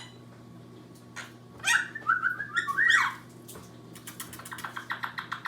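Quaker parrot chirping and whistling a quick run of short rising and falling notes about two seconds in, followed near the end by a rapid series of sharp clicks, about seven a second. A steady low hum lies underneath.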